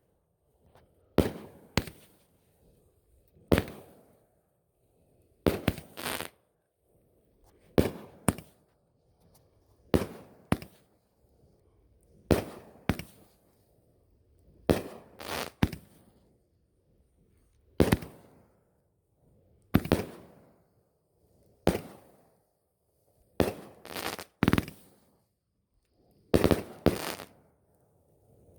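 A 16-shot 500 g fireworks cake (T-Sky Daddy-O) firing one shot about every two seconds. Each shot is a sharp bang, often followed by a second bang about half a second later.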